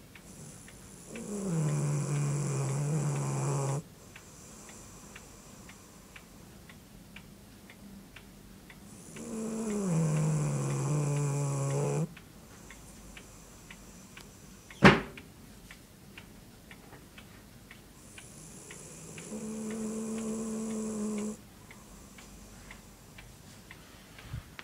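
Dog snoring in its sleep: three long snores of about three seconds each, roughly eight seconds apart, the first two sliding down in pitch as they begin. A single sharp click about fifteen seconds in is the loudest sound.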